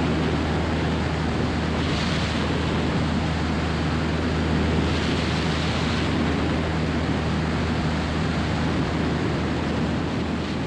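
Single-engine light aircraft in cruise: the piston engine and propeller run at a steady low drone under heavy wind rush on an airframe-mounted camera's microphone.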